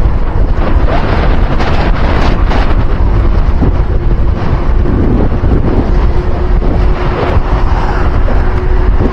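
Loud wind buffeting the microphone, a continuous low rumble. A faint steady hum enters about three seconds in.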